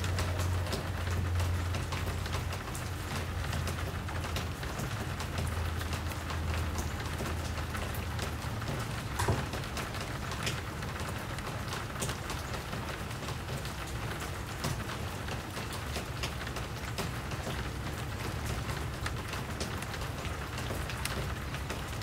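Steady rain, many drops ticking close by over an even patter, with a low rumble underneath that fades after the first eight seconds or so. One louder drop lands about nine seconds in.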